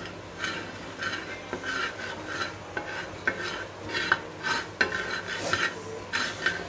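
Metal spoon scraping and stirring around a flat black pan, about two strokes a second, over the sizzle of butter, oil, garlic and flour frying together: the roux stage of a white sauce.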